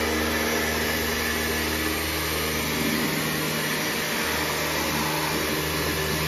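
Kärcher K 2 Universal electric pressure washer running: a steady motor-and-pump hum under the hiss of the water jet spraying against a car. The hum dips briefly a few times past the middle.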